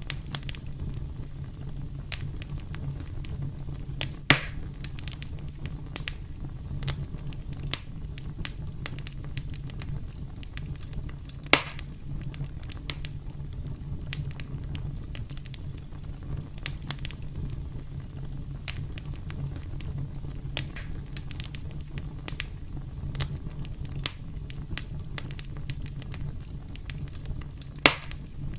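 Wood campfire crackling: a steady low rumble under many small snaps, with three louder pops, about four seconds in, near the middle, and near the end.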